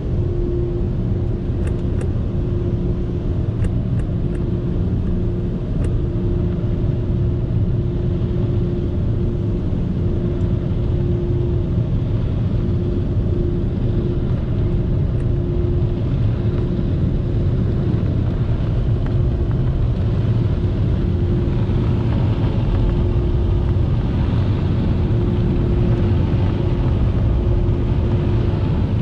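Automatic drive-through car wash heard from inside the car cabin: a steady rumble of the wash machinery and water over the car, with a steady hum that breaks off now and then. In the second half a rushing air sound rises as the car passes the dryer blowers.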